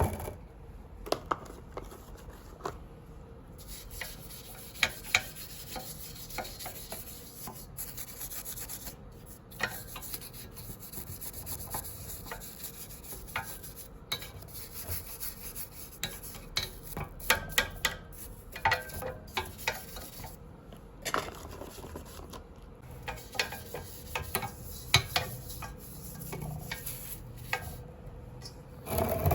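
Hand rubbing and scrubbing on a brass charcoal samovar, with scattered sharp metallic clicks and taps.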